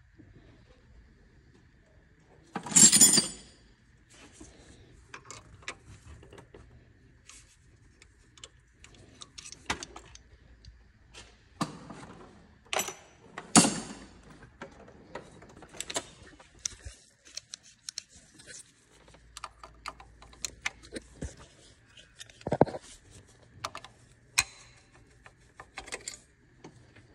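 Scattered metallic clinks and knocks of hand tools and engine parts being handled, with one louder rattling clatter about three seconds in.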